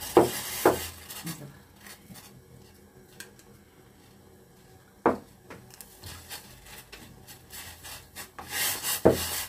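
Utensils working a pot of egg soup: two sharp knocks of a spoon against the bowl and pot at the start as beaten egg is scraped in, a single knock about five seconds in, and a wooden spoon scraping and stirring in a stainless steel pot near the end, ending in another knock.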